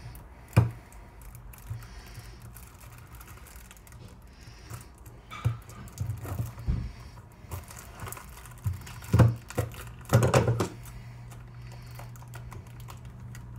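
A small cardboard box being handled and pried open by hand: scattered taps, clicks and scrapes, with a cluster of louder ones about nine to ten and a half seconds in. A steady low hum runs underneath.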